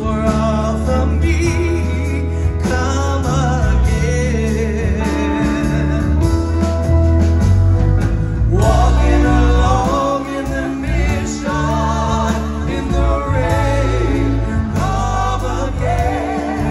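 Live band playing a song: a woman sings lead, with backing singers joining, over electric guitar, drums and keyboards.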